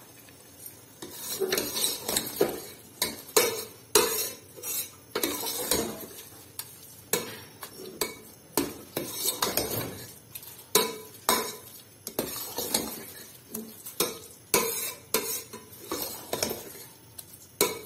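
Steel spoon scraping and clinking against a stainless-steel pot while thick carrot halwa with khoya is stirred and mixed, in an irregular run of strokes roughly two a second.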